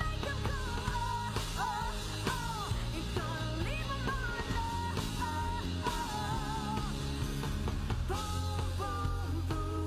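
A woman singing a rock song, holding and bending long notes, backed by a band with a steady bass and drums.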